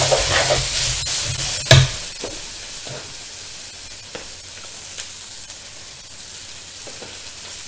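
Noodles stir-frying in hot oil in a wok: a steady sizzle, with a spatula scraping and knocking against the pan as they are tossed. The sizzle and stirring are loudest in the first two seconds, with one sharp knock near the end of that, then settle to a quieter even sizzle with a few light taps.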